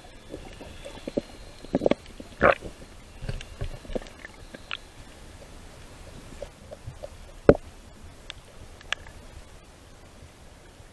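Underwater water noise: irregular gurgling pops and clicks of bubbles and water moving around the camera, busiest in the first few seconds, with one sharp click about halfway through.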